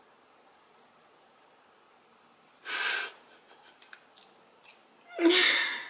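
A woman's sharp breath, a few faint light clicks, then near the end a short wordless vocal sound, loud and falling in pitch.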